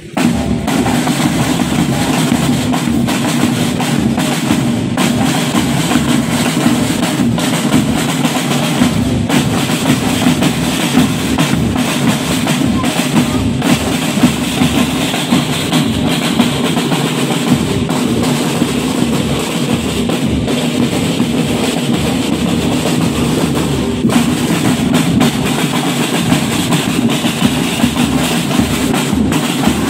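A marching drum band of snare drums and other marching drums plays a continuous, fast, steady cadence together.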